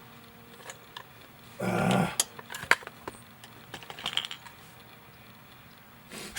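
Scattered light clicks and clacks from handling a 6mm ARC AR-15 rifle that has just failed to feed, with a short rush of noise about two seconds in and a single sharp crack right at the end.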